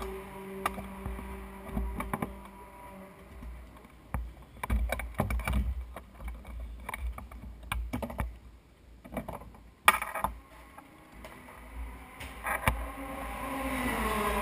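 Racing seat harness being fastened on a single-seater: straps rustling and buckles clicking, with knocks and thumps against the camera, and one sharp click about ten seconds in. A steady engine hum fades out in the first few seconds and a rising engine note comes back near the end.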